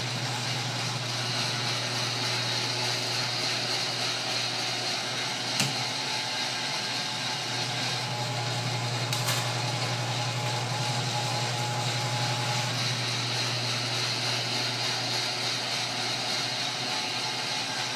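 Sheet-metal lock former running steadily, its electric motor humming and its forming rolls turning as copper sheet is rolled into seams. Two sharp clicks come about six and nine seconds in.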